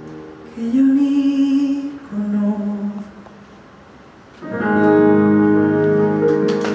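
Closing bars of a live acoustic song: a woman sings a few held notes over two acoustic guitars, the music drops almost to nothing, then the guitars strike a final chord about four and a half seconds in and let it ring.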